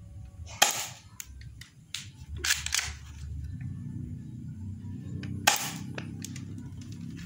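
Upgraded Glock 18 alloy airsoft pistol firing single shots: sharp cracks about half a second in, twice close together around two and a half seconds, and again about five and a half seconds in.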